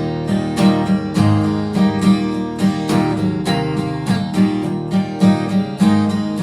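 Acoustic guitar strummed in a steady rhythm, about two to three strokes a second, in an instrumental passage between sung lines of a country song.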